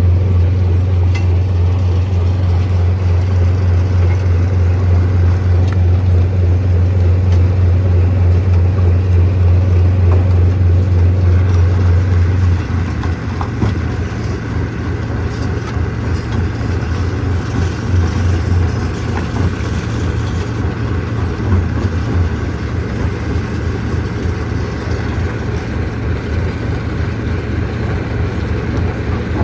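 Heavy machinery engine running steadily with a deep, evenly pulsing hum. About twelve seconds in it drops a little in level and turns rougher and less even.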